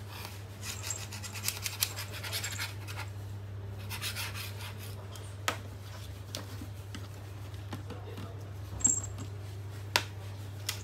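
Plastic litter scoop scraping across a tiled floor in short scratchy strokes, then three sharp taps against the tiles about halfway in, near the end and just before it.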